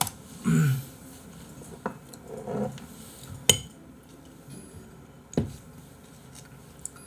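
Dishes and cutlery knocking together a few times: separate sharp clinks spread a second or two apart, the loudest about halfway through. Two brief voice sounds come early on, between the clinks.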